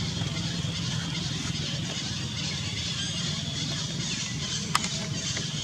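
Steady outdoor background noise, a low rumble under a high hiss, with one sharp click near the end.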